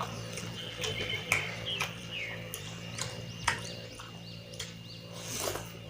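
Close-miked eating sounds: chewing and lip-smacking on a mouthful of mutton curry and rice, with irregular wet clicks and smacks over a steady low hum.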